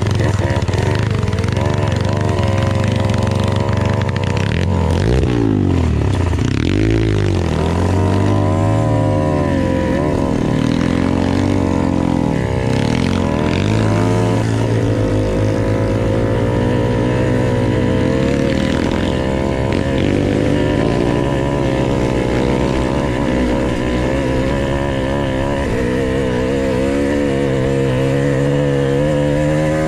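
Dirt bike engine running under way, its revs rising and falling over and over in the first half, then running steadier.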